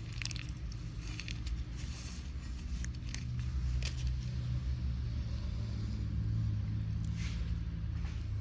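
A steady low engine hum, with scattered faint clicks and crackles over it.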